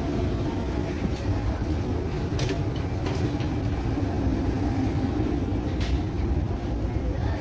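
Dubai Metro train running, heard from inside the car: a steady low rumble with a faint hum, and a few sharp clicks.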